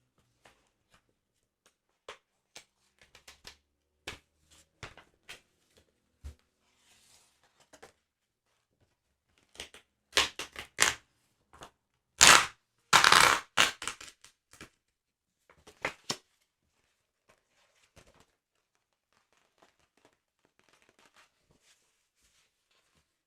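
Close-up paper and sticker handling. Scattered light clicks and ticks come first, then a run of loud crinkling, tearing-like bursts about ten to fourteen seconds in, fading back to faint ticks.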